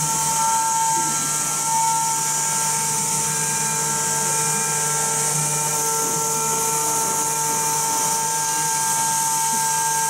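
CNC door lock machine's high-speed spindle running steadily, cutting into the edge of a wooden door panel: a steady high whine over a hiss of cutting.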